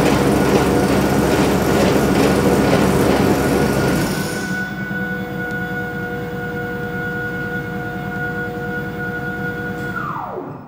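Toro 60V e26 HA electric two-stage snowblower running with no load, its motor driving the auger and impeller. A loud, rattly running sound drops away about four seconds in, leaving a steady electric whine. Near the end the whine falls in pitch as the machine is shut off and spins down to a stop.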